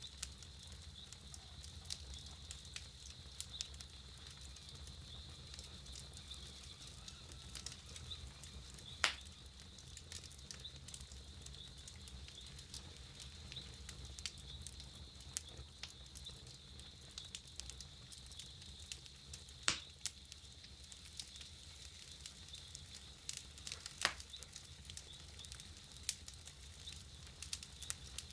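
Campfire burning with scattered wood crackles. A few sharper pops come about nine, twenty and twenty-four seconds in.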